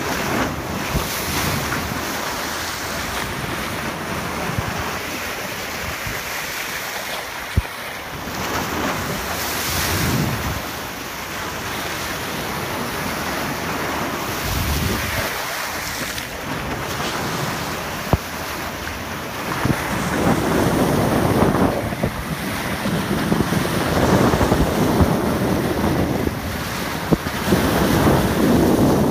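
Wind buffeting the microphone over water rushing and splashing along the bow of a moving boat. It rises and falls in surges and is louder in the last third, with three brief sharp knocks.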